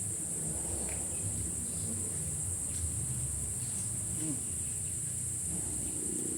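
Steady high-pitched chorus of insects chirring without a break, with a faint low murmur underneath.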